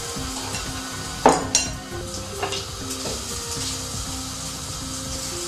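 Beaten eggs frying in hot oil in a wok, a steady sizzle, with a utensil knocking against the pan a few times, most sharply about a second in.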